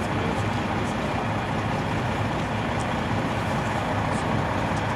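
Freightliner Classic semi-truck's diesel engine idling steadily, a continuous low rumble.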